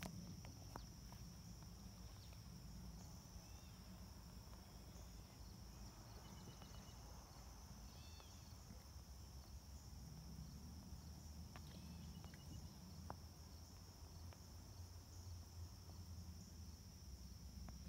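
Faint, steady high-pitched chorus of night insects trilling, with a few scattered faint clicks and a low rumble underneath.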